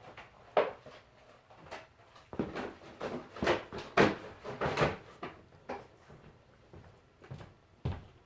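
A dog chewing and thrashing a plush dog toy: irregular knocks, scuffs and rustles, busiest and loudest a few seconds in.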